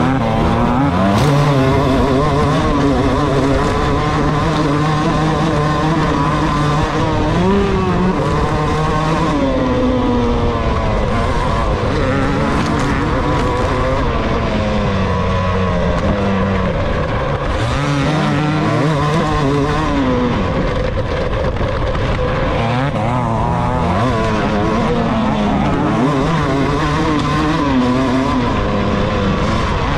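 Dirt bike engine heard from on board, revving up and dropping back again and again as the rider works the throttle around a motocross track.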